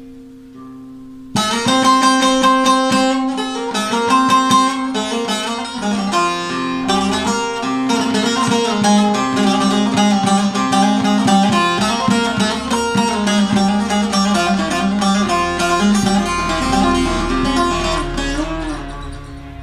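Davudi (deep-toned) bağlama with a 43 tekne body, tuned in the La–Do# range, playing a Barak havası: a fast plucked and tremolo-picked melody over ringing drone strings. A held note dies away for about the first second before the playing comes in sharply, and it fades out near the end.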